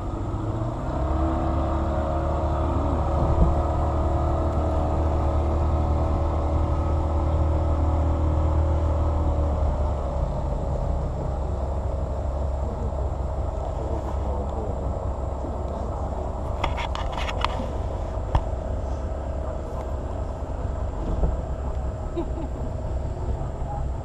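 An engine running steadily with a low hum that eases off about ten seconds in, and a brief cluster of clicks about two-thirds of the way through.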